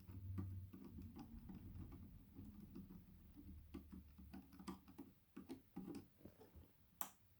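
Faint, irregular small clicks and taps from battery cells and their plastic spacers being handled and pressed together, over a low hum for the first few seconds.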